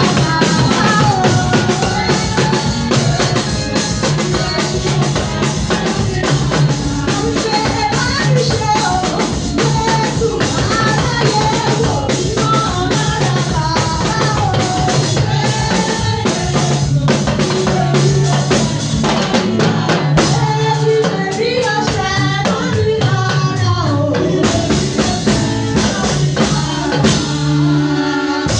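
Church praise music: a lively song with singing over a drum kit and bass, with a steady beat.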